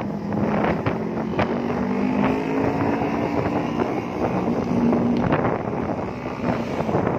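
Motorcycle engine running while riding, its pitch rising a little and then easing off, with wind buffeting the microphone.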